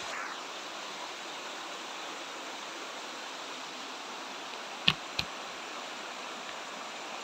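Shallow rocky stream rushing steadily over stones, a constant even hiss of flowing water. Two sharp clicks about five seconds in, close together.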